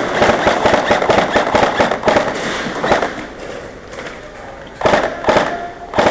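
Airsoft guns firing in rapid bursts of sharp pops: a dense volley for the first few seconds that thins out, then another burst about five seconds in and a few shots near the end.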